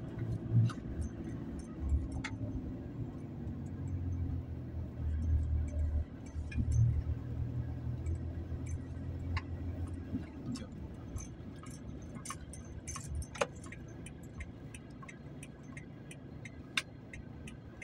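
Vehicle driving slowly over a rough road, heard from inside the cab: a low engine and tyre rumble, heavier in the first half, with frequent light rattles and clicks from loose things jostling in the cab.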